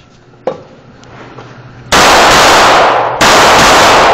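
Rapid 9mm pistol fire from a Gen 4 Glock 17 in a small indoor room, so loud that the shots run together into one clipped blare from about two seconds in, with a short break about a second later. A single knock is heard about half a second in.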